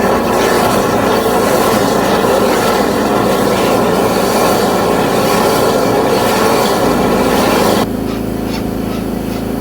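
High-pressure drain-cleaning washer running with a steady mechanical drone. It drops sharply in level about eight seconds in.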